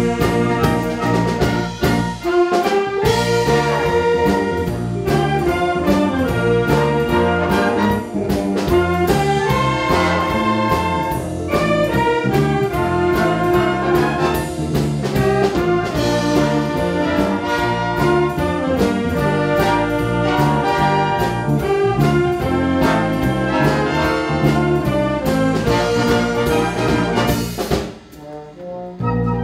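A concert wind band playing a medley of Korean popular songs, with trumpets and trombones leading and a drum kit and cymbal keeping a steady beat. The band drops away briefly near the end, then comes back in.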